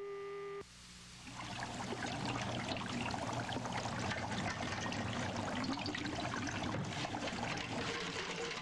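Liquid bubbling and fizzing with a dense crackle, swelling up over about the first second and then holding steady. Just before it, a held musical chord cuts off.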